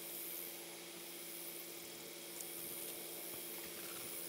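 Faint steady background hiss with a low, even hum underneath and no distinct events.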